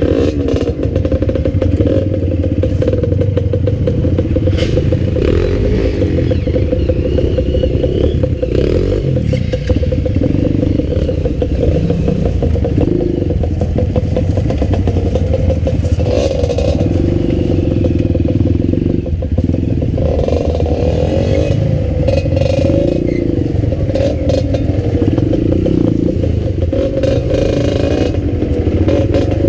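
Enduro dirt bike engine running at low revs through a rough, rocky trail section, the revs rising and falling every few seconds, with clattering and knocks from the bike over the ground.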